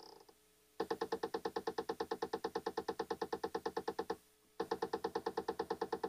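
Tenveo PTZ camera's pan-tilt mechanism knocking rapidly during its boot-up movement, about ten knocks a second, like a woodpecker. It comes in two runs with a brief break a little past halfway. The owner doesn't think the camera is supposed to do this, and he had earlier seen it trying to tilt further down than it can go.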